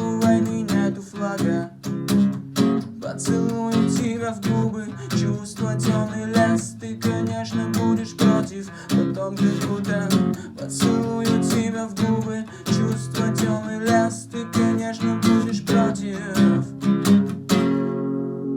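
Acoustic guitar strummed in a steady rhythm with no singing. The strumming stops near the end on a final chord that is left ringing and fades.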